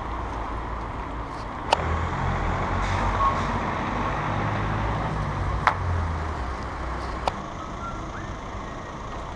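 Street traffic: a motor vehicle's engine rumbles past, swelling from about two seconds in and fading after about seven, over steady city street noise. Three sharp clicks come along the way.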